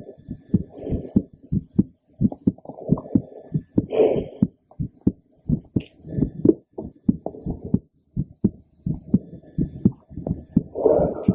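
A woman's heartbeat heard through a stethoscope: a steady run of short, low lub-dub thumps. Two brief rushing swells break in, about four seconds in and again near the end.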